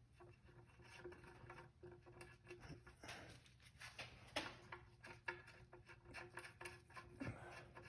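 Faint, scattered clicks and light metallic taps of hand tools and the oil drain plug being handled as the plug, fitted with a new copper crush washer, is put back on the T40 socket and started in by hand.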